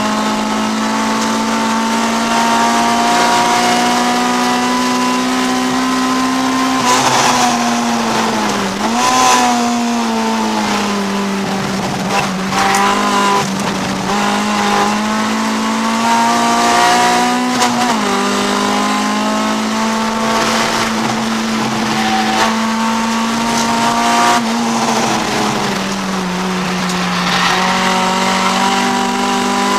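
Honda CRX's B20 VTEC four-cylinder engine running hard at race pace, heard from inside the cabin; the engine note holds high and dips and climbs again several times.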